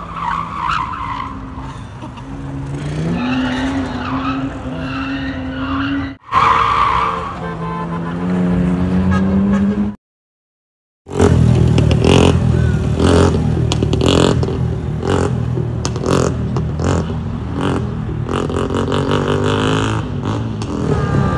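A car engine revving with tyres squealing as a sedan drifts through a turn. After a short silence, a motorcycle engine is revved over and over in short throttle blips, coming much faster near the end.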